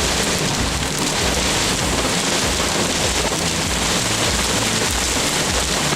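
Heavy wind-driven rain in a severe thunderstorm's straight-line winds: a steady, loud wash of noise, with gusts buffeting the microphone in uneven low rumbles.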